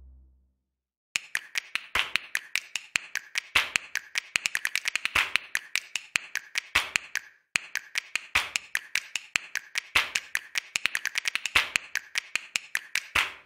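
A rapid, uneven series of sharp clicks or taps, several a second, with a short break about halfway through.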